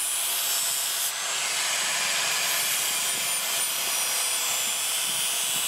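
Electric angle grinder with an abrasive disc grinding the steel edge of a machete blade: a steady, loud, hissing grind.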